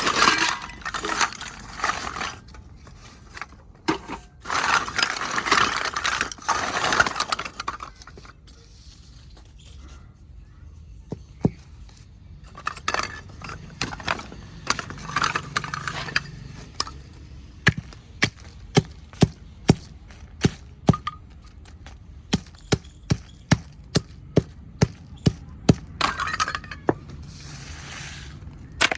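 Baked clay pieces being crushed and broken by hand. Bursts of crunching and crumbling come first, then a long run of sharp single cracks, about one or two a second, through the second half.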